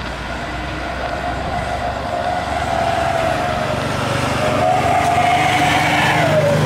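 Airbus A320-family jet engines on landing approach, the drone and whine growing louder as the airliner comes in low over the runway; the whine drops in pitch near the end as it passes.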